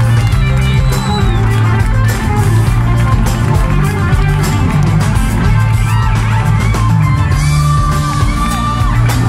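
Live rock band playing, with electric bass guitar, drums, keyboards and guitar.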